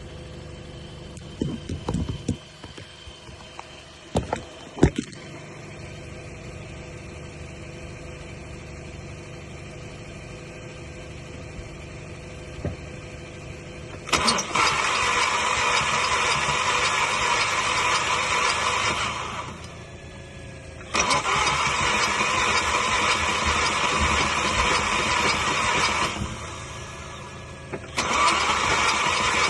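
2007 Volkswagen GTI's starter motor cranking the engine in three long attempts of about five seconds each, with short pauses between them. The engine never catches: a no-start after the car stalled with the EPC light on. Before the cranking there is a steady low hum with a few knocks.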